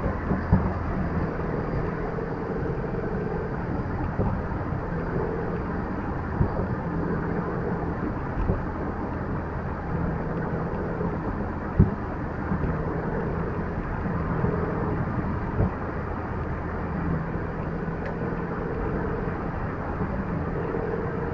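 Car driving on the road: steady engine and road noise, with a few brief knocks.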